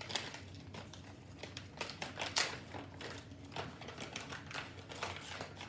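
An MRE pilot bread packet being opened and handled, the plastic wrapper crinkling, with a run of irregular sharp ticks and rustles. The loudest click comes a little over two seconds in.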